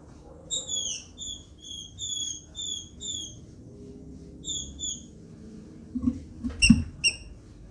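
Female green-winged saltator (trinca-ferro) calling: a quick series of about nine short, high, down-slurred notes, then two more a second later. About six seconds in come a few soft thumps as the bird hops along its wooden perch, the loudest with two sharp high chips.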